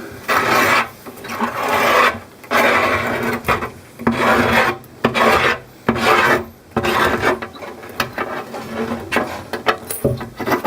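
Rough scraping or rasping strokes of a hand tool worked back and forth on the tank during its repair, about one stroke a second, fainter in the last few seconds.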